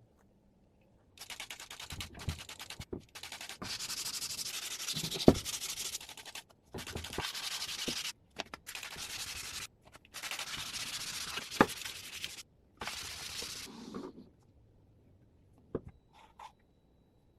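Abrasive sanding on a halberd axe: a hissing rasp in several bursts of a few seconds each, each stopping suddenly, with a couple of sharp knocks among them.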